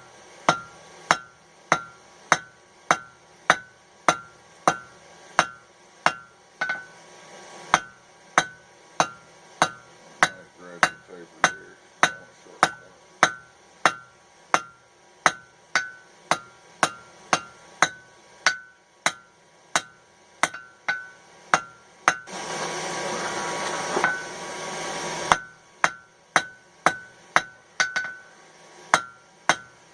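Blacksmith's hand hammer striking hot mild steel on an anvil at a steady pace of about two blows a second, each blow leaving a short ring, while the end of the nail header's bar is drawn out to make a hook. About three quarters of the way through, the hammering stops for a few seconds of steady noise.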